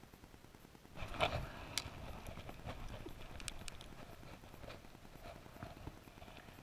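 Close handling noise: a winter jacket rustling against a chest-mounted camera, with scattered sharp clicks and taps as an ice-fishing rod is handled. It starts about a second in and is loudest at first, then thins to occasional clicks.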